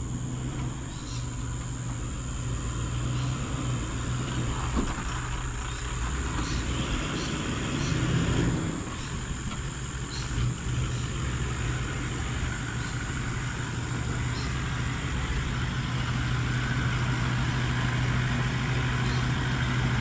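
Four-wheel-drive vehicle's engine running steadily, with a few faint ticks and knocks over it.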